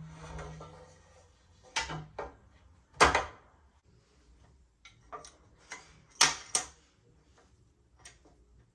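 Handling noises of bicycle headset parts: a rustle at the start, then a run of sharp clicks and knocks as parts are set onto a carbon fork steerer, the loudest about three seconds in and a quick pair about six seconds in.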